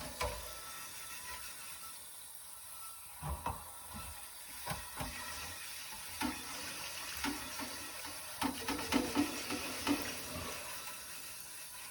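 Tap water running into a sink while cast iron cookware is scrubbed under it. Irregular scrapes and clunks of the cast iron come through, mostly in the second half.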